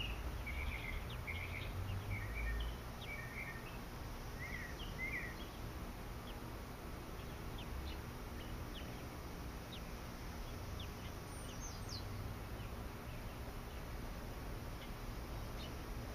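Short bird chirps in the background, a quick run of them in the first five seconds and scattered faint chips after, over a steady low outdoor rumble.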